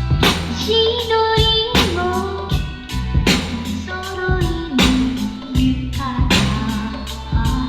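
A song with singing, a steady drum beat and heavy bass, played through a Bang & Olufsen Beosound Stage soundbar in a sound test.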